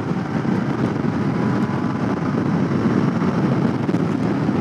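Royal Enfield Continental GT 650's parallel-twin engine running at steady cruising speed, mixed with wind buffeting the camera microphone.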